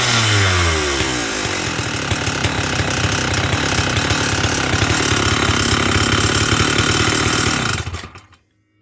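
Stihl 048 Super two-stroke chainsaw engine dropping from a rev to a fast, rattly idle, then shutting off suddenly near the end. The saw has a badly worn piston, which the owner calls bad piston slap.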